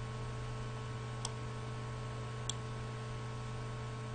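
Two light computer-mouse clicks, about a second in and again at two and a half seconds, over a steady low hum and hiss from the recording setup.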